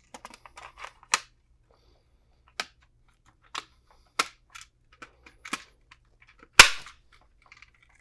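Plastic back plate of a DSC HS2LCDPN wired alarm keypad being handled and pressed on: a series of sharp plastic clicks and snaps among light handling ticks, the loudest snap about six and a half seconds in.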